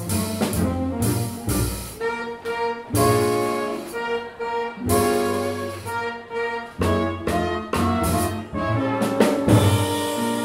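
Live swing jazz band playing, with brass horns in short, punchy chords over drums and cymbal hits.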